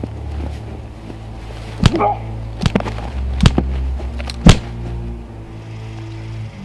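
A flurry of punches landing on a body, about six sharp blows over two and a half seconds, the first and last the loudest, with a short grunt near the first blow. A low droning film score runs underneath.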